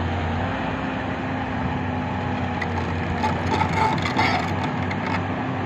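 SANY SY220C crawler excavator's diesel engine running steadily. Between about two and a half and five seconds in there is scraping and crunching as the bucket works the sand.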